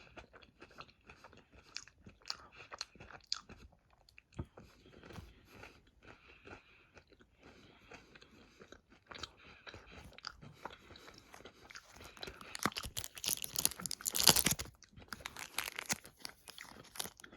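Close-up chewing and mouth sounds of someone eating a chocolate frog, small wet clicks scattered throughout. A few seconds of louder, denser rustling and clicking come near the end.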